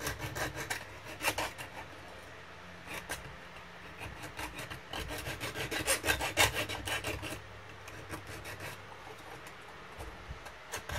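Small hand file scraping back and forth over the edge of a thin perforated sheet-metal disc, in irregular runs of quick strokes that are loudest midway. The sharp cut edges are being filed smooth.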